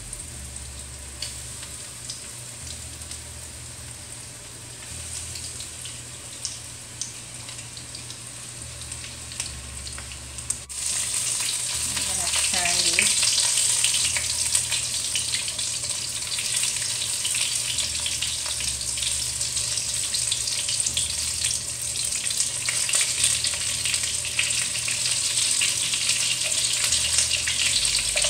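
Breadcrumb-coated chicken meatballs shallow-frying in oil in a wok, a steady sizzle with fine crackling. About eleven seconds in it jumps abruptly to a louder, denser sizzle that holds for the rest.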